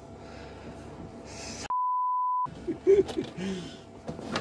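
A single steady electronic beep at about 1 kHz, lasting under a second, with the rest of the sound cut out while it plays: a censor bleep edited over a word.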